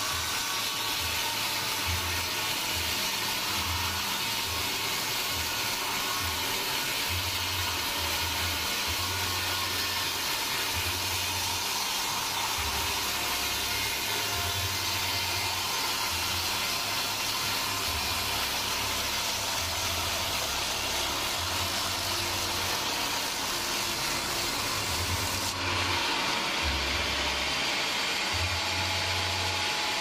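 Sawmill band saw running and cutting a slab off a large hardwood log, a steady mechanical hiss and whir of the blade through the wood. The highest part of the hiss thins out near the end.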